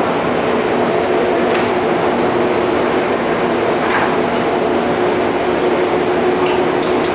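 Paddle steamer's steam engine and machinery running steadily: a continuous mechanical rumble with an even hum through it.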